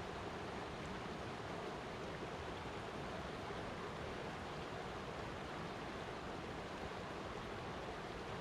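Flowing water rushing steadily, an even, unbroken wash of noise.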